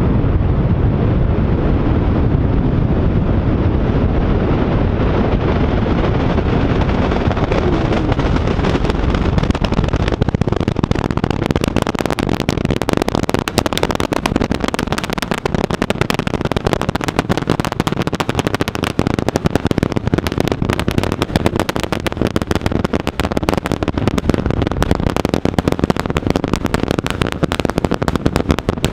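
SpaceX Starship's Super Heavy booster climbing out on its 33 Raptor engines. It starts as a deep rumble that turns into dense, rapid crackling from about ten seconds in.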